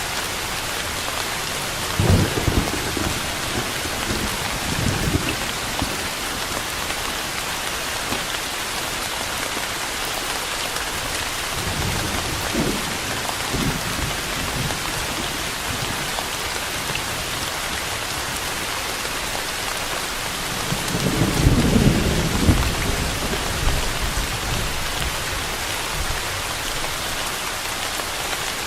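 Steady rain falling, an even hiss, with low rumbles of thunder rolling in a few times; the longest and loudest comes about three quarters of the way through.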